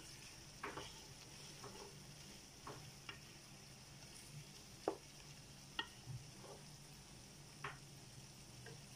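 Meat and liver frying in a pot with a faint steady sizzle, stirred with a wooden spatula. Scattered sharp clicks and light knocks come at irregular moments, the loudest about five seconds in.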